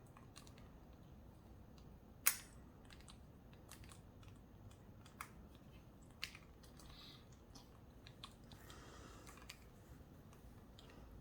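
Parrot's beak picking at the plastic of a phone: faint, scattered clicks and taps, one sharper click about two seconds in, with brief soft scratching later on.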